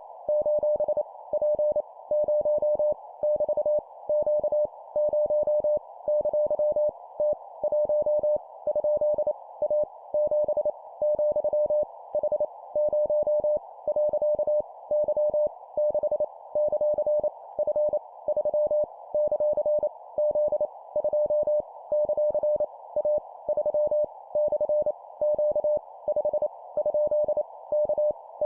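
Morse code (CW) sent at 25 words per minute: a single steady tone keyed on and off in quick dots and dashes, spelling random letters, numbers and punctuation. A faint, steady narrow hiss runs beneath it.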